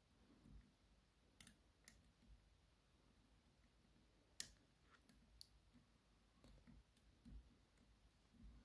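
Faint, scattered metallic clicks of a hook pick working the pin stacks inside a DOM RS Sigma euro cylinder held under tension, the sharpest about four and a half seconds in.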